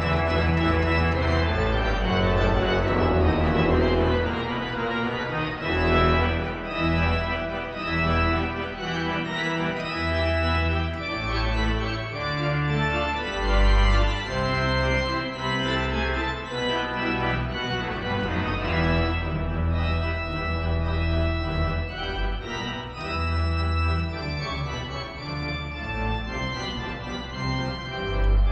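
Pipe organ playing a lively, busy passage of quick notes and chords over deep pedal bass notes that change about every second.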